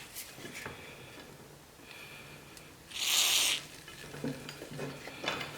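WD-40 aerosol can spraying once, a hiss of about half a second, lubricating the ends of steel pipe. Faint clicks and knocks of handling come before it.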